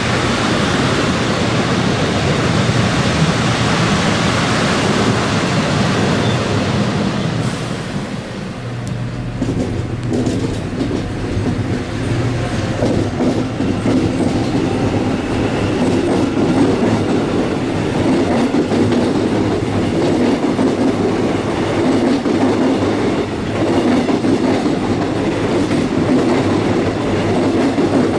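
A train running past on the track, its wheels clattering over the rail joints. About eight seconds in the sound changes and carries on steadily, as different cars or a second train pass.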